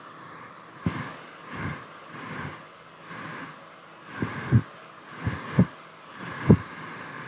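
Hair dryer running with a steady whir, broken by irregular low thumps about once a second.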